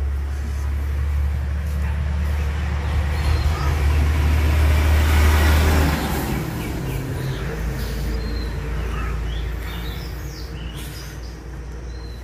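A motorbike passing on the road, its engine noise swelling to its loudest about five seconds in and then fading away.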